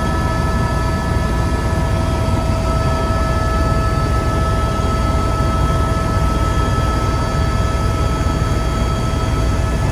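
Helicopter cabin noise in steady flight: the engine and rotors make a constant loud low rumble, with several steady whining tones on top.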